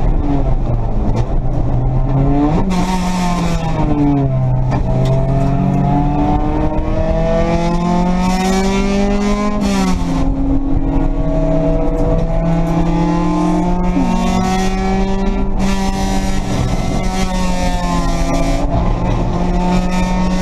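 Race car engine heard from inside the stripped, caged cockpit under hard driving. Its note falls and rises over the first few seconds, then climbs steadily. About ten seconds in it drops suddenly, as at a gear change, then holds high and rises slowly, over steady wind and road noise.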